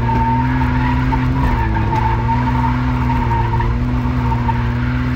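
Car engine held at high, steady revs while the tyres squeal through a drift, heard from inside the cabin. The engine note dips briefly twice, and the squeal is strongest over the first few seconds.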